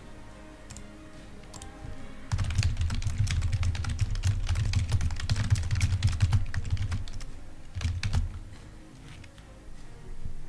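Typing on a computer keyboard: a run of rapid keystrokes starting about two seconds in and lasting about five seconds, then a short burst a second later.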